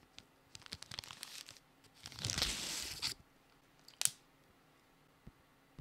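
A small clear plastic packet crinkling and rustling as it is handled. The crinkling is light in the first second and a half, then a louder rustle lasts about a second, and a single sharp click follows about four seconds in.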